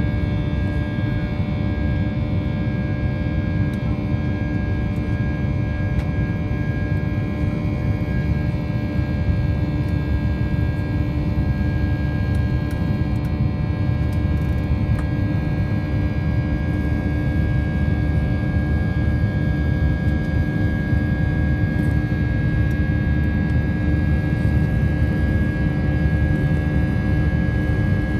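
Airbus A320 cabin noise during the climb after takeoff, heard from a window seat over the wing: a steady low rush of jet engines and airflow, with a steady hum and a higher whine throughout.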